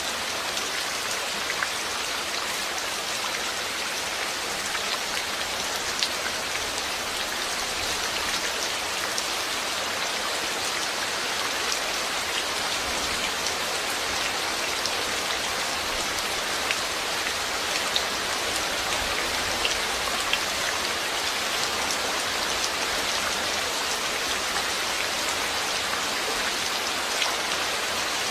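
Steady rain falling on a surface, an even hiss dotted with the sharper ticks of single drops landing.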